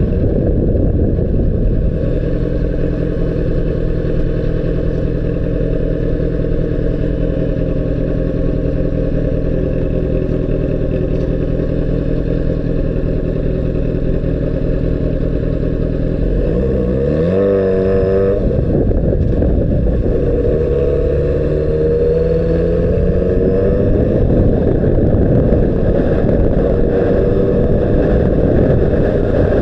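Honda CBR600RR inline-four engine running steadily under a constant low rush, with a quick rise and fall in revs a little past halfway and another climb in revs shortly after. The sound is dull and muffled, with little above the low and middle range.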